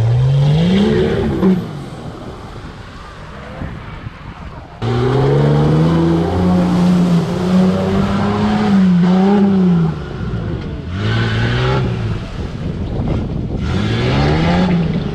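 Four-wheel-drive engines revving hard in bursts as the trucks push through deep mud ruts, the pitch rising and falling with the throttle. After a quieter stretch the sound jumps back up suddenly about five seconds in, with a long held rev and two shorter rev rises near the end.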